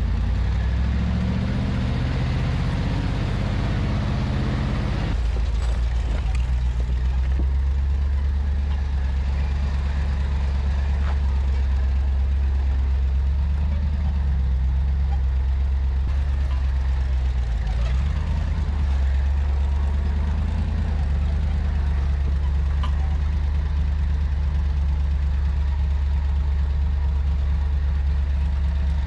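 Willys Jeep engine running while being driven, its pitch climbing in steps for the first few seconds, then changing abruptly and running on steadily.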